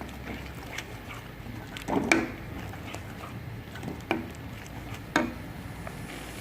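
A spoon stirring masala in a cooking pan, knocking against the pan: two louder knocks about two and five seconds in, and a softer one in between.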